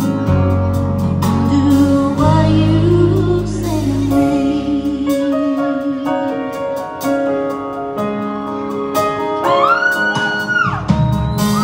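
Live country ballad: a woman singing lead over a band with electric guitar and bass. The bass drops out for a stretch, and near the end a high note slides up and is held.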